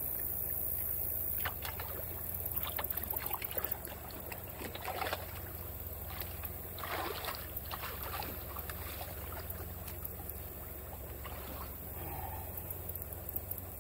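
Long-handled potato rake dragged and plunged through shallow water and beaver debris at a drain pipe's outlet: irregular splashing, sloshing and scraping strokes, busiest from about two to eight seconds in, with a few more near the end.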